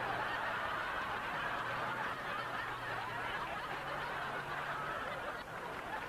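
A crowd of many voices, a dense jumble of shouting and laughter, over a steady low hum.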